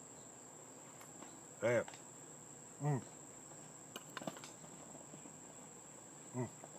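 A steady, high-pitched insect trill, crickets or similar, held on one unbroken note, with a few faint clicks around the middle.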